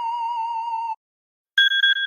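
Two iOS alarm tones in a row: a steady electronic tone with a slight wobble stops about a second in. After a short gap the next tone starts, a higher ringing tone with a rapid flutter.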